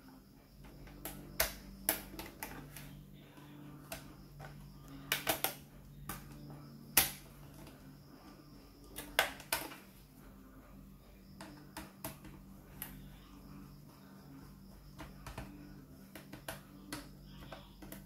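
Irregular sharp clicks and taps of hard plastic as a laptop's bottom cover panels are pressed back into place and a small screwdriver works on the case, over a faint steady low hum.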